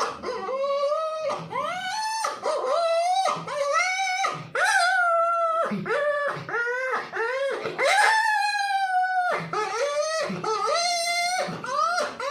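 A puppy whining and yelping: a rapid run of high cries, each rising then falling in pitch, with a few longer drawn-out whines along the way.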